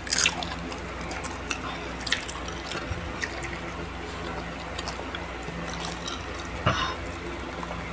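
Close-up eating and drinking sounds: scattered small mouth clicks and smacks as crispy fried food is chewed, and a swig of cola from a glass bottle, over a steady low hum.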